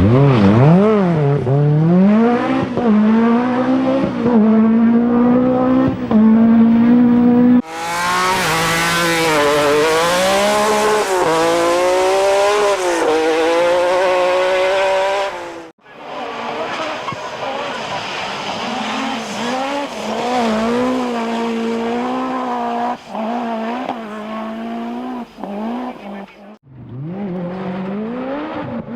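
Group B rally car engines revving hard, pitch climbing and dropping again and again through gear changes, in several clips cut together at about 8, 16 and 27 seconds in. In the second clip a loud rushing hiss sits over the engine.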